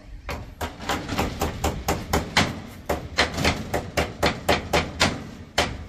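Rapid, steady hammering: a hammer striking about four times a second.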